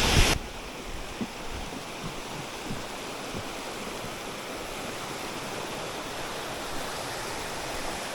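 Steady rushing of a mountain stream and waterfalls, an even hiss of running water, after a brief louder burst at the very start.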